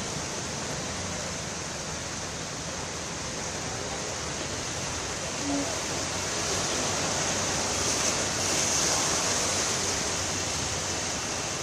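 Heavy rain and rushing floodwater splashed up by buses and cars driving through a waterlogged road, a steady wash of noise. It swells about halfway through as a bus wades past close by.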